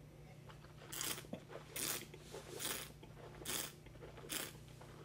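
A taster slurping air through a mouthful of wine to aerate it on the palate: five short sucking hisses in a row, about one every 0.8 s.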